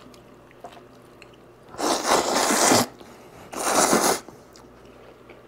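A person slurping noodles from a bowl: two long, loud slurps, the first about two seconds in and the second about a second later.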